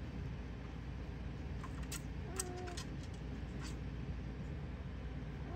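Steady low background rumble with a few faint clicks, and one short, faint cat meow about two seconds in.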